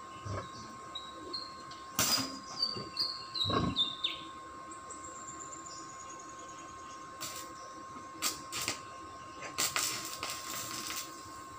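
Electric arc welding on a steel gate frame: short bursts of arc crackle, with a longer crackling weld near the end. Between the welds a bird sings runs of high notes that step downward in pitch.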